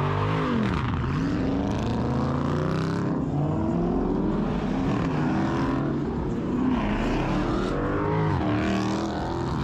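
Car engines running and revving, several at once, their pitch repeatedly falling and rising.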